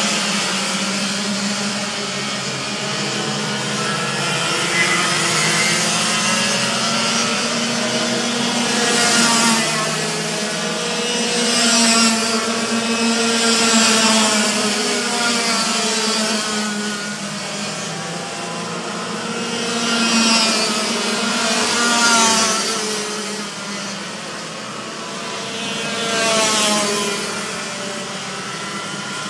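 Several racing kart engines buzzing around the circuit, their pitch rising and falling as they accelerate and brake. The sound swells about six times as karts pass close, each pass bringing a hiss of tyres throwing spray off the wet track.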